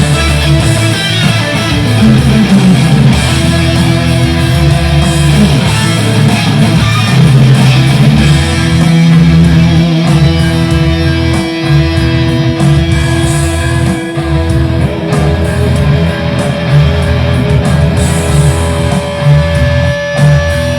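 Electric guitar (Fender Stratocaster) played through a Boss Katana 100 amplifier, improvised with a heavy rock tone. A falling slide comes about two seconds in, and long held notes ring later.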